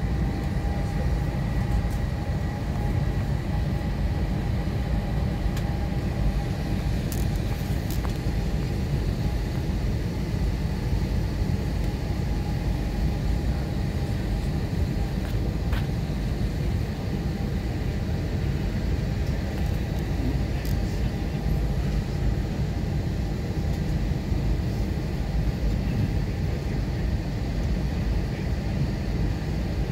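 Airbus A321 cabin noise while taxiing: a steady low rumble from the jet engines at taxi power, with a faint steady whine over it.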